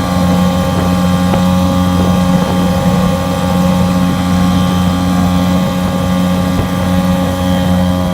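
Mariner 3.3 hp two-stroke outboard motor running under way at a steady speed, a constant even drone.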